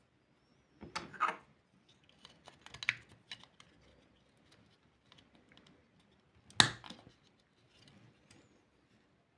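Small parts being handled and worked by hand: scattered light clicks and short scrapes, with one sharp, louder click or snap about two-thirds of the way through.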